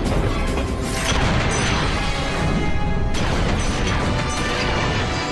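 Animated action-film soundtrack: a dramatic music score layered with crash and impact effects. The two loudest hits come about a second in and about three seconds in.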